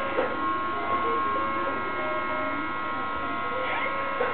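Plastic balls rolling and clicking down a toddler's spiral ball-drop toy, with a few sharp clicks, over a steady buzzing hum and short electronic tones.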